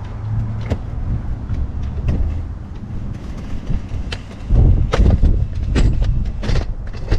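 Handling noise from the camera being moved and repositioned: scattered clicks and knocks, with a heavy low rumble and thumps from about four and a half seconds in.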